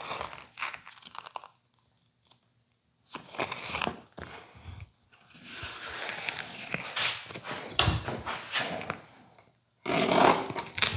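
Better Boat double-sided woodworking tape being pulled off the roll and torn, in several separate pulls with short pauses between.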